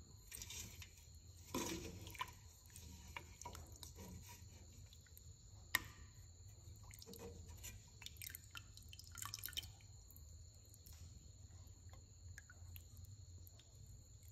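A ladle dipping into a pot of curry and lifting it out, with thick liquid slopping and dripping. There are scattered small knocks of the ladle against the pot, one sharp clink about halfway through.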